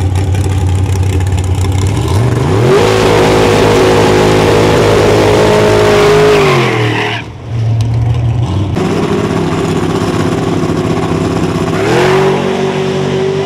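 Drag race car's engine revving hard during a burnout, the rear tyres spinning in smoke. The pitch climbs about two and a half seconds in, holds high, then falls; after a brief break the engine runs on and climbs again near the end.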